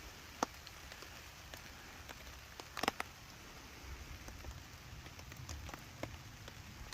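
Beer-battered food sizzling in hot oil over a campfire: a steady frying hiss with scattered pops and crackles, the sharpest about half a second in and a cluster just before three seconds.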